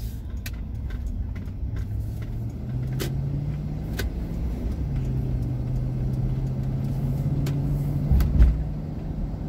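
Car engine and road noise heard from inside the cabin while driving, the engine note stepping up in pitch as the car gathers speed. A low thump about eight seconds in, with a few faint clicks.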